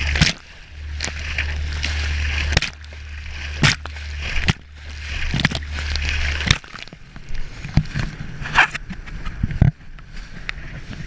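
A small boat's hull slapping and splashing through choppy water at speed, with sharp splashes of spray along the side. A steady low rumble runs under it and stops about six and a half seconds in.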